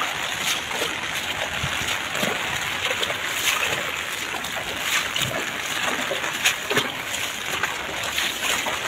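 Heavy monsoon rain pouring down and splashing onto standing and flowing floodwater: a dense, steady hiss dotted with many small splashes.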